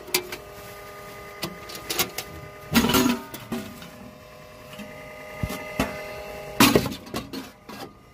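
Hand-handling of a truck's round air cleaner housing and filter element: the lid and the pleated filter with its metal mesh are shifted and lifted, giving a run of knocks, clunks and scraping. The loudest clatters come about three seconds in and about six and a half seconds in, over a steady background hum.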